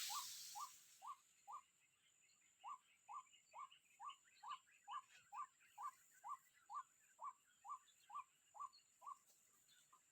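Faint, regular string of white-breasted waterhen calls, about two a second, with a short break about two seconds in. A rush of noise dies away in the first second.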